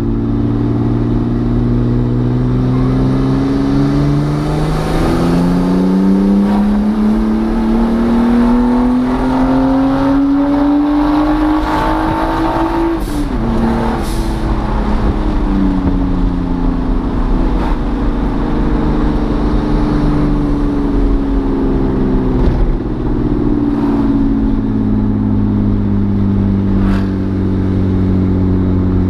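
Nissan RB20DET turbocharged straight-six in a Mazda B2200 pickup, heard from inside the cab while driving. The engine note climbs steadily for about nine seconds under acceleration, then drops off suddenly and winds down slowly as the truck slows, settling to a steady lower note near the end.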